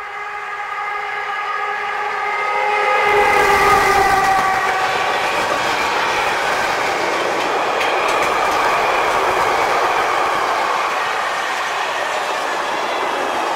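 Class 130 electric locomotive sounding a long multi-tone horn that drops slightly in pitch as it passes about three seconds in, then stops. A long freight train follows, its wagons rolling by with steady wheel rumble and rail clatter.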